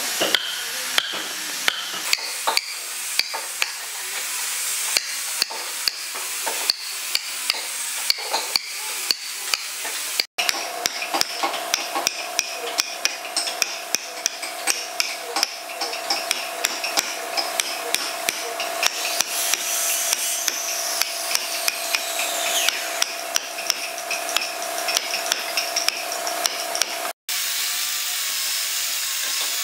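Repeated mallet blows driving a wood chisel into a log, about two sharp strikes a second, with a steady tone behind them for much of the time. Near the end a chainsaw runs steadily, cutting into a wooden slab.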